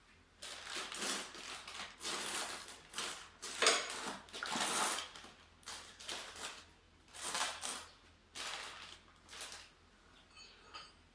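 Irregular clattering and rustling of objects being handled, a dozen or so short noisy bursts with no engine running.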